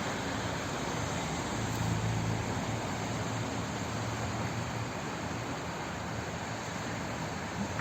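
Flowing water making a steady, even rushing hiss, with a low rumble underneath that is a little stronger in the first few seconds.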